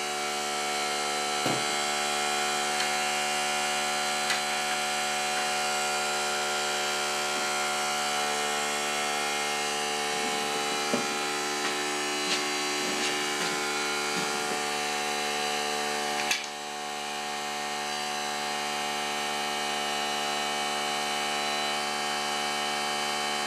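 Small Harbor Freight kit air compressor running steadily, then cutting off abruptly near the end. A few light clicks and knocks sound over it.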